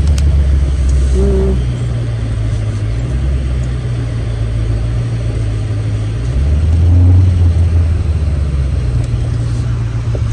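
Low engine and road rumble inside a moving car's cabin, swelling louder near the start and again about six seconds in.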